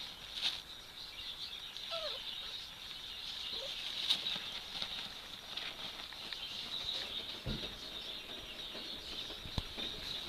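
A puppy rummaging and burrowing through a pile of duvets, pillows and blankets, with continuous soft rustling of fabric and scattered scratches.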